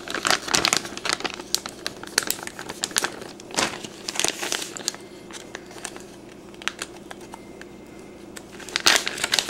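Clear plastic zip-top bag of soft plastic fishing lures crinkling as it is handled, in irregular bursts: heaviest near the start, around four seconds in, and again just before the end, with a quieter stretch between.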